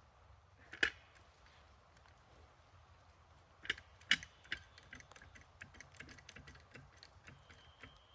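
Wooden-beam wedges being knocked and worked loose: a sharp knock about a second in, three more knocks a little after the middle, then a run of light clicks and taps.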